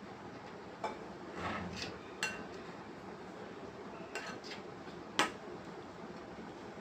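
A kitchen utensil knocking and scraping against a mixing bowl while flour batter is stirred: a few sharp clinks, one with a short ring.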